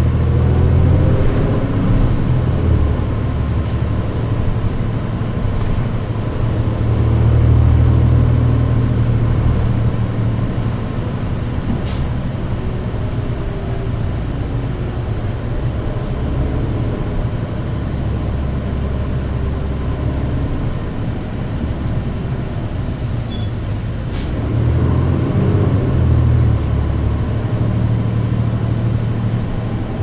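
Cummins ISL diesel engine and driveline of a 2009 New Flyer D40LFR transit bus, heard on board while it drives. A steady low drone grows louder twice, about a third of the way in and again near the end, with a couple of sharp clicks and a brief hiss in between.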